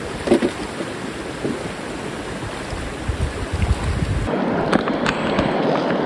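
Rushing river current: a steady hiss of flowing water, with low wind buffets on the microphone.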